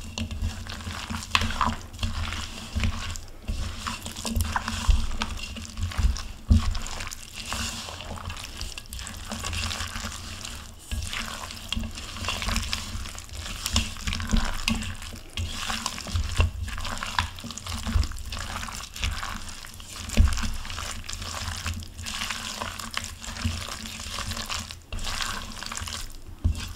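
A utensil stirring and mashing a wet salmon patty mixture in a plastic bowl: continuous squishing and scraping, with scattered low thumps.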